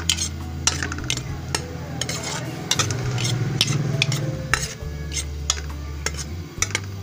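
Steel ladle stirring chopped onions in a steel pot, with many sharp metal clinks and scrapes against the pot, as the onions sizzle in hot oil.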